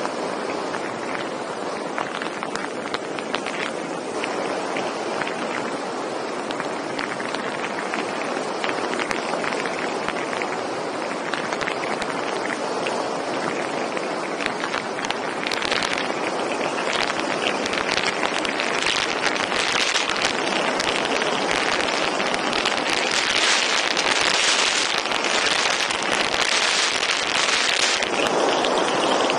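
Wind rushing and buffeting over the camera microphone during a paramotor's spiral descent in tight 360s. The rush grows louder and rougher about halfway through, then eases slightly near the end.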